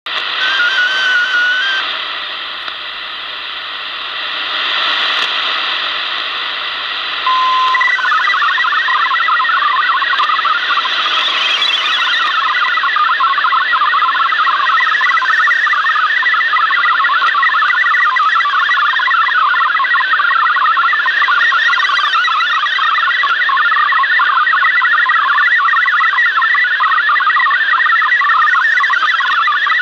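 Shortwave receiver (Yaesu FRG-7700) tuned to a digital data broadcast: band hiss with a few brief wavering tones, then about seven seconds in a short steady tone followed by the continuous warbling of an MFSK-32 signal, many rapid tones hopping within a narrow pitch range.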